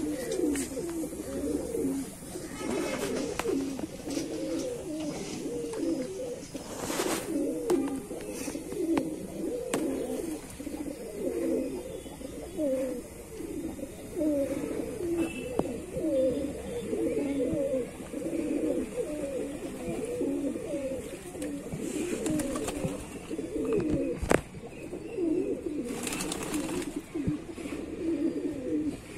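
A flock of domestic pigeons cooing, many birds overlapping into a continuous warbling murmur. A few brief rustles and one sharp click break in.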